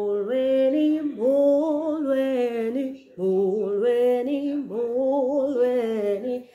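A woman singing unaccompanied: a short wordless-sounding melody of held notes stepping up and down, in two phrases with a brief break about three seconds in.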